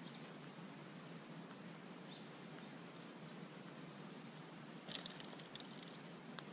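Quiet outdoor ambience: a low steady hiss with a few faint, short, high bird chirps, a small cluster of them about five seconds in, and a single faint click near the end.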